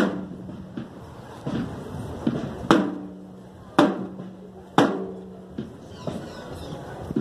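A hand-carried procession drum beaten slowly: loud single strikes, three of them about a second apart, each ringing on with a low hum, with softer taps in between.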